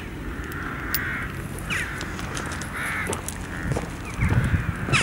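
A bird, crow-like, giving harsh cawing calls about once a second. Low crunching or rumbling noise rises near the end, from walking on the gravel path.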